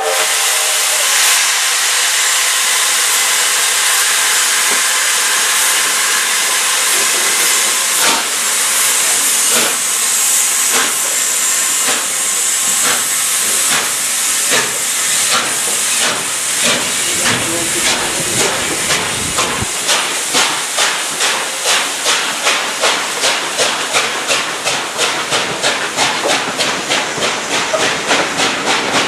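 USATC S160 2-8-0 steam locomotive starting a passenger train, with a steady hiss of steam from the open cylinder drain cocks. Its exhaust beats come in sharp and regular from about a quarter of the way in and quicken as the train gathers speed.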